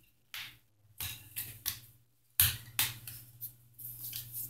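Irregular light taps, clicks and scuffs, about eight in all, the loudest a knock about two and a half seconds in, over a low steady hum.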